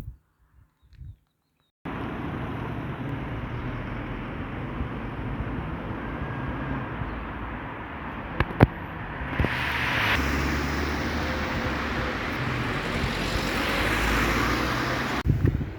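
Steady outdoor noise with a low rumble that starts abruptly about two seconds in and swells twice, with two sharp clicks about halfway through.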